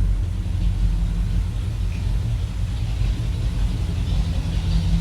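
A Pontiac 350 V8 with a four-barrel carburettor running steadily at low revs.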